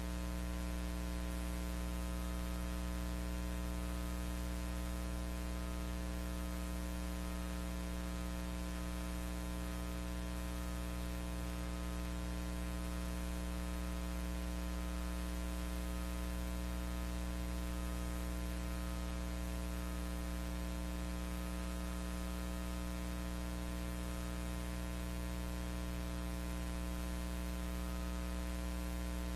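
Steady electrical mains hum with many evenly spaced overtones, over a constant hiss. No sound of the train itself is heard: the film is silent.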